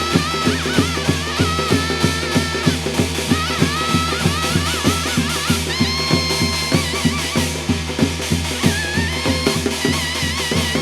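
Korean shamanic gut ritual music: fast, even drumming at about four beats a second, with a wavering melody held above it.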